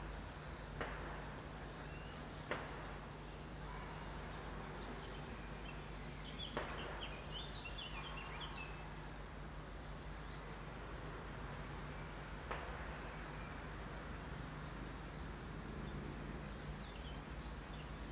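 Four small-calibre rifle shots from a shooting range, sharp cracks at irregular intervals with a short echo after each, the second one the loudest.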